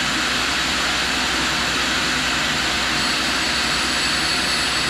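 Steady rushing of a shop vacuum drawing dust and a tool and cutter grinder's wheel spinning, while the wheel is dressed with a cut of about a thousandth of an inch.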